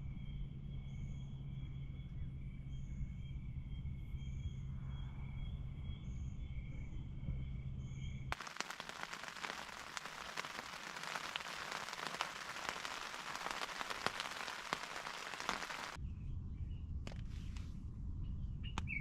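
A steady high-pitched hum for the first eight seconds or so, then heavy rain pattering and crackling that starts abruptly and cuts off just as suddenly about sixteen seconds in, followed by quieter outdoor ambience.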